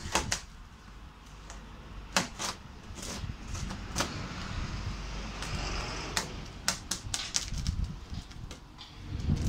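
Packing tape on a cardboard box being slit and torn open with a pointed hand tool: sharp taps and scrapes of the tool on the tape and cardboard, with a longer rasping tear around the middle and a quick cluster of taps after it.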